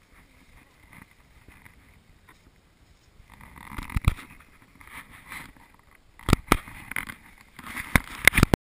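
Handling noise on an action camera: rubbing and scuffing, then a series of sharp knocks on its housing, the loudest near the end as the camera is turned over and picked up.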